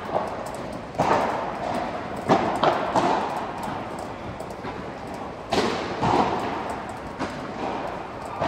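Padel rally: the ball popping off solid padel rackets and bouncing on the court. A series of sharp hits, irregularly spaced about a second apart, each echoing in a large indoor hall.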